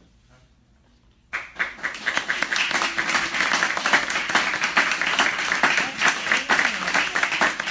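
Audience applause: many hands clapping, starting suddenly about a second in and going on steadily.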